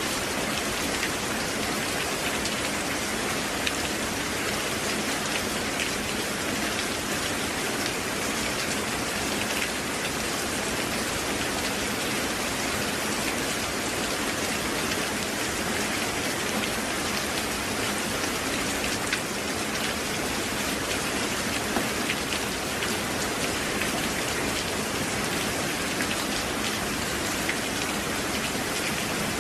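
Steady rain falling and pattering on surfaces, a dense even hiss flecked with many small drop ticks.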